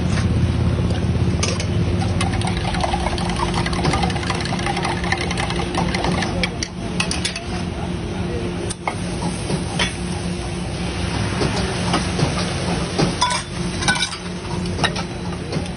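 Street-food stall kitchen: a steady low mechanical hum runs under scattered clinks of a steel ladle and spoon against steel pots and tumblers, with voices in the background.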